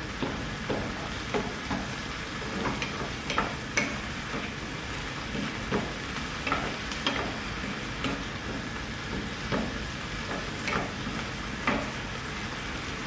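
Wooden spatula scraping and knocking against a frying pan as chopped tomato, cucumber and onion are stirred, over a steady sizzle of frying. The knocks come irregularly, about one every half second to second, and stop near the end.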